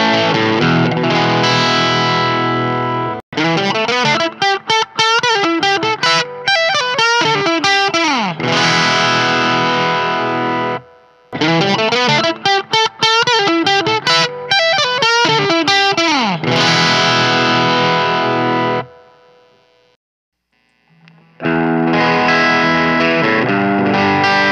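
Overdriven electric guitar, a Reverend Contender 290 with P-90 pickups through the drive channel of a Mesa Boogie Fillmore 25, close-miked at the speaker with a Behringer SL75C: ringing strummed chords, then a quick run of picked notes with slides. The looped phrase plays twice, then after a short silence near the end the chords start again, now through a Shure SM57.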